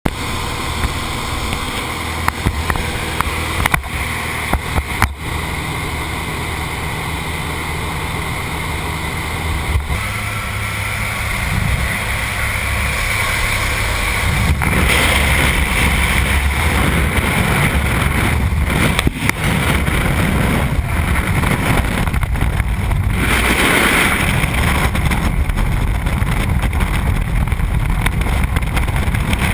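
Engine of a small propeller plane running steadily, heard in the cabin. About halfway through it gives way to a louder, steady rush of wind on the helmet camera in skydiving freefall.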